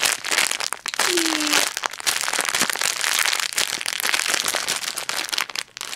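Clear plastic packaging crinkling and crackling close up as a bread-bun foam squishy is squeezed inside it.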